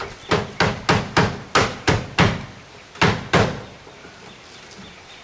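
Hammer driving nails into roof edge metal: a quick run of about eight sharp blows, a short pause, two more, then it stops.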